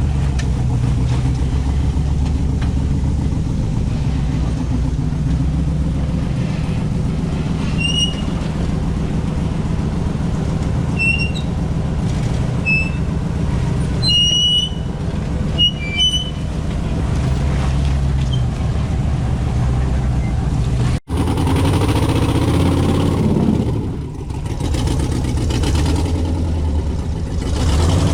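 Off-road 4x4 engine running steadily at low revs, with a few short high chirps over it. About three-quarters of the way through the sound breaks off for an instant, and the engine continues with a rougher, noisier tone.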